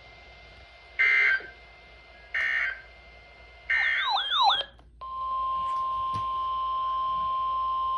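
NOAA Weather Radio signals over a radio receiver: three short bursts of SAME digital data tones about a second apart, typical of the end-of-message code that closes an alert, then a brief warbling sweep. About five seconds in, the steady 1050 Hz warning alarm tone starts and holds.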